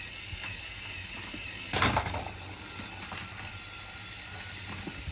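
Faint clicking of a small plastic toy mechanism, with one sharp knock about two seconds in.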